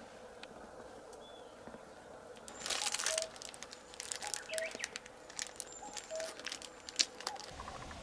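Aluminium foil crinkling and rustling, in a dense burst about two and a half seconds in and then in scattered crackles and light clicks, as a foil food tray is handled during a meal. Faint bird chirps in the background.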